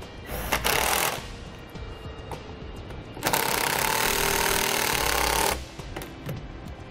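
A compact cordless drill/driver drives a screw up into a camper's underside. It makes a short burst of under a second near the start, then runs again for about two and a half seconds from about three seconds in.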